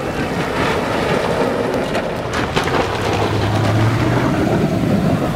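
Off-road SUVs driving through shallow river water: engines running under a steady wash of splashing and rushing water, with one engine's low note standing out for about a second past the middle.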